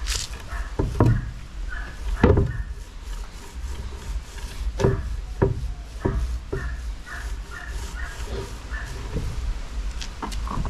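Resin being brushed onto a plywood transom board: rubbing strokes with a few sharp knocks against the wood.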